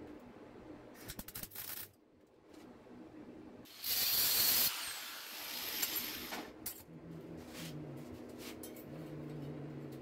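Metal cutlery clinking as a spoon-and-fork bird sculpture is handled in a vise, with a rapid cluster of clicks about a second in. A short hiss follows at about four seconds and lasts under a second.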